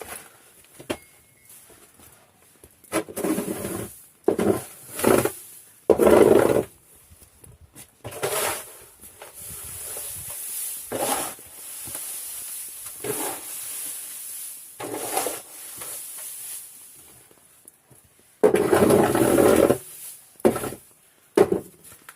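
Sheep and goats of the herd bleating: a string of separate calls, with one longer call of about a second and a half near the end.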